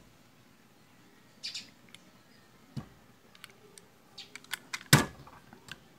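Small steel parts of a Stanley hand riveter clicking and tapping against each other as they are fitted back onto the tool's nose tube by hand. The clicks are scattered, with a quick run of them about three to five seconds in and the loudest single click near five seconds.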